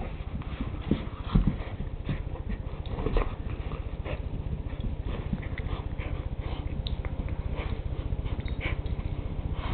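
Two pit bulls, an adult and a puppy, play-wrestling over a sock: dog sounds, scuffling and a few knocks, the loudest about a second and a half in, over a steady low hum.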